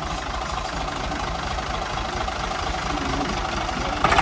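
Vehicle engine running steadily, with a short knock near the end.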